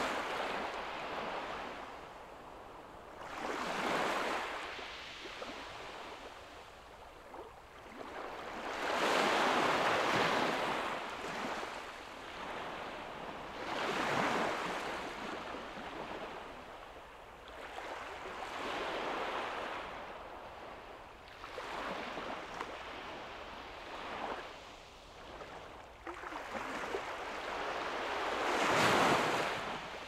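Gentle waves breaking on a sandy beach, a swell of surf washing in every four to five seconds and fading between. The loudest breaks come about ten seconds in and near the end.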